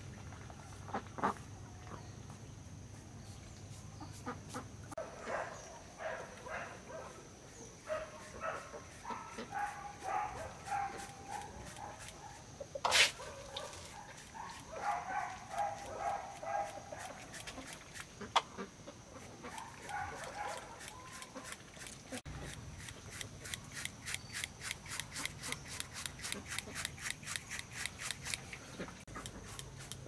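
Chickens clucking on and off, with one sharp click partway through. In the last third, a paintbrush scrubs over rough concrete in quick, even strokes, about three a second.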